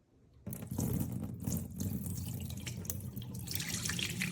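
Water running and splashing irregularly, starting about half a second in.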